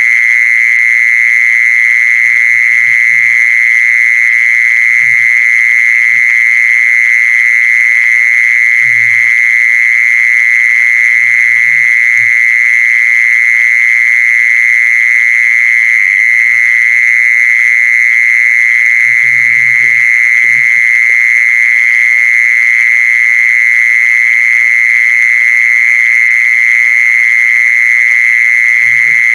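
A loud, steady high-pitched buzz runs throughout, with short low croaking calls every few seconds, a couple of them longer at about nine and twenty seconds in. It is an animal-calling lure recording meant to attract a female Kmol.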